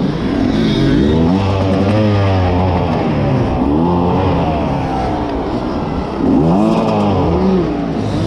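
Two-stroke enduro motorcycle engine revved hard in repeated bursts, its pitch climbing and dropping several times, as the rider fights to get the bike over a log step.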